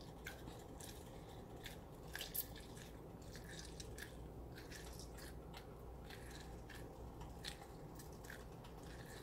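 Faint, irregular squishing and ticking of lemon halves being squeezed by hand, juice running into a pot of sauce.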